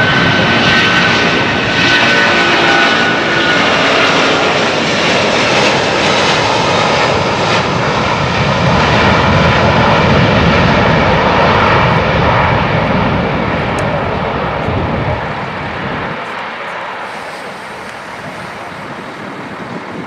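Air China Airbus A330-300's Rolls-Royce Trent 700 turbofans at takeoff thrust as the jet rolls past on its takeoff run, a high fan whine slowly falling in pitch early on. The engine noise is loudest about halfway through, then fades as the aircraft moves away and lifts off.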